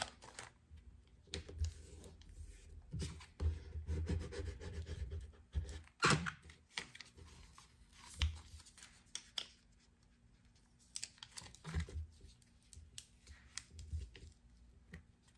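Adhesive vinyl decal and clear contact-paper transfer sheet being peeled and handled: scattered crackling, tearing rustles and light clicks, the loudest about six seconds in.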